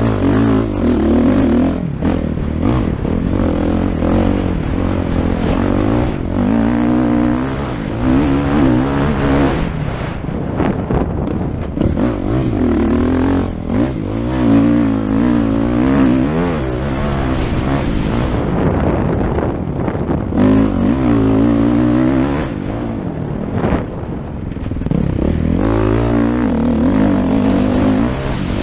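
Dirt bike engine heard from the bike's own camera while racing a motocross track, revving up hard and backing off again and again through the corners and straights.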